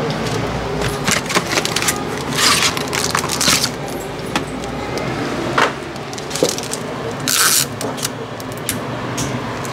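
Plastic snack packets being handled: irregular crinkling and rustling with scattered clicks and taps, over a low steady hum.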